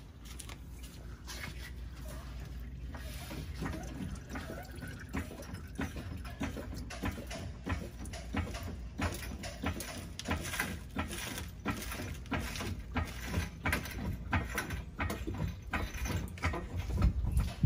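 Used engine oil from a Sprinter six-cylinder diesel pouring in a thin stream into a plastic drain pan full of oil, splashing and pattering irregularly throughout.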